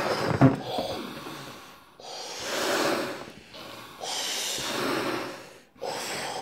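A child blowing up a rubber party balloon by mouth: a series of long breathy blows into the balloon, each a second or two, with quick breaths taken in between.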